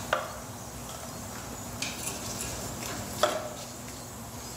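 Two sharp clinks about three seconds apart, with a fainter one between, of hard tools or pump parts knocking as they are handled, over a steady low hum.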